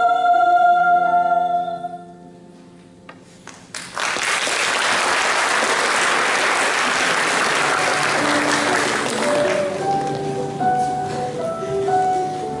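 A held sung note over accompaniment ends about two seconds in. After a short hush and a few first claps, the audience applauds for about five seconds, and then instrumental accompaniment for the next song begins.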